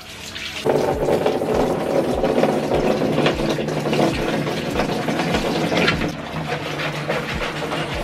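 Water from a wall tap pouring into a plastic basin and splashing as the basin fills. The rush jumps louder under a second in, as the basin goes back under the stream, then stays steady.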